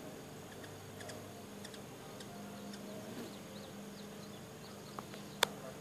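Hummingbird wings humming faintly and steadily, with scattered faint high chirps and one sharp click near the end.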